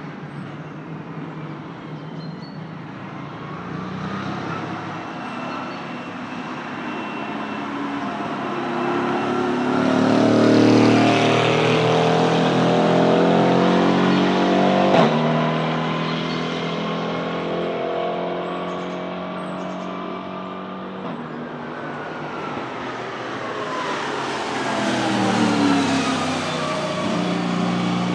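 Mercedes-AMG GT4 race cars' 4.0-litre twin-turbo V8 engines passing at speed. The first car grows louder, is loudest about ten to fifteen seconds in with a single sharp crack, then fades, and a second car's engine rises again near the end with its pitch gliding.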